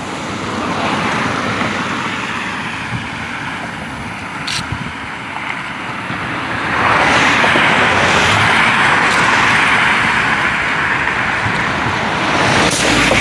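Road traffic on a highway bridge: cars driving past as a steady noisy rush that grows louder about seven seconds in and stays loud.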